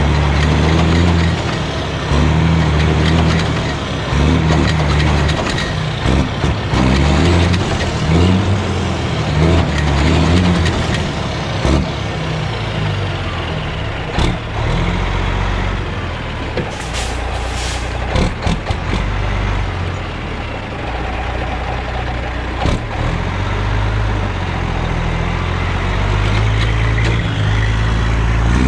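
Diesel semi tractor's engine running under load as it drags a stripped truck chassis across gravel, its speed rising and falling repeatedly. A few sharp clanks come through, and a short air hiss sounds a little past halfway.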